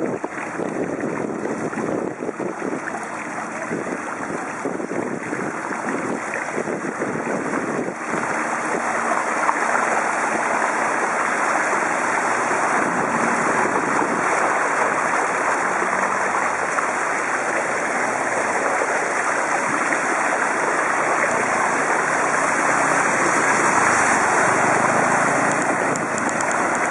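Harsh wind noise on the microphone of a camera mounted on a DAHON folding bicycle, mixed with water swishing as the bicycle rides through floodwater. It is a steady rushing that gets a little louder about eight seconds in.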